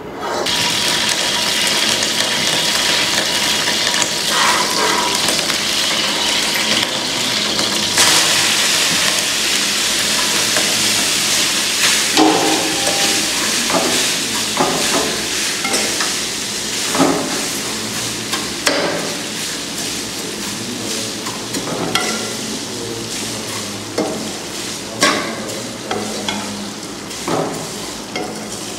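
Vermicelli frying in a little ghee in a steel wok, a steady sizzle, while a metal spoon scrapes and knocks against the pan every few seconds as it is stirred. This is the roasting stage, when the vermicelli browns before any water is added.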